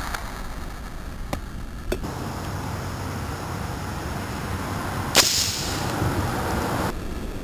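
Homemade alcohol-powered paintball gun firing: a sharp pop about five seconds in, followed by a rush of hissing noise that lasts under two seconds and cuts off suddenly. A few faint clicks come earlier.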